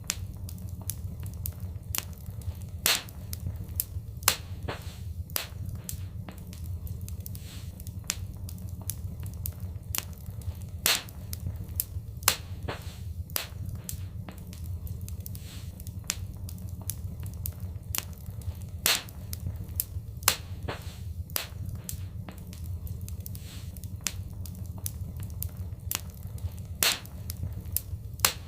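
Fireplace fire crackling, with irregular sharp pops, a few of them much louder, over a steady low rumble of the flames.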